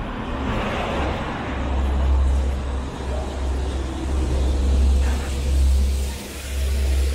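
City street traffic: cars driving past over a steady low rumble, swelling loudest about two seconds in and again around five seconds.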